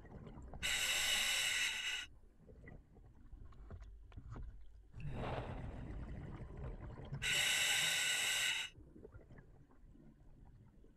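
Scuba diver breathing on open circuit through an OTS Guardian full face mask. There are two sharp hissing inhalations through the demand valve, each about a second and a half long and six seconds apart. Between them comes a longer, lower rushing exhalation of bubbles.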